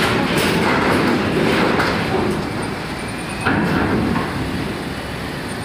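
Trucks and cars driving onto a ferry during loading: a steady, loud din of engines and rolling rumble.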